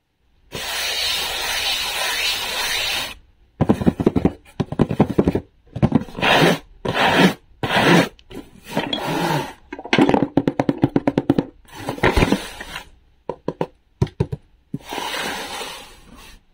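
A cardboard box handled and opened by hand: a long scraping rub of cardboard, then a run of quick crackling, tearing and tapping, and another scraping rub near the end.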